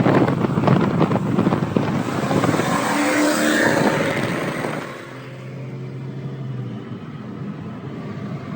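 Porsche 928S V8 engine running under load, loud and crackly, then easing about five seconds in to a quieter, steady drone.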